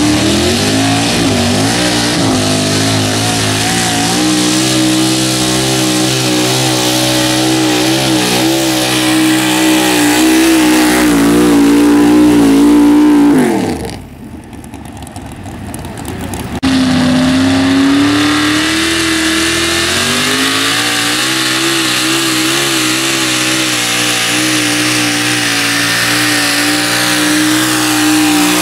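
Super stock two-wheel-drive pulling truck engine held at high revs under load as it drags the sled, its pitch wavering. About halfway through, the revs fall away quickly as the pull ends. After a few quieter seconds, another pulling truck's engine cuts in abruptly, already at high revs under load.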